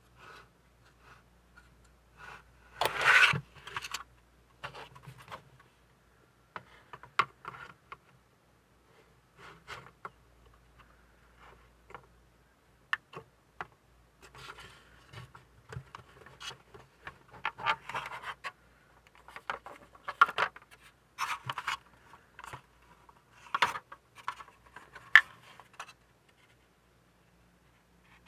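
Plastic model kit parts being handled on a desk: irregular scrapes, rubs and light clicks of styrene hull pieces being fitted together, with a louder scraping burst about three seconds in.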